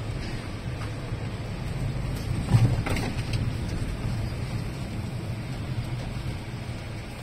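A car driving slowly, heard from inside the cabin: a steady low engine and tyre rumble, with a thump about two and a half seconds in.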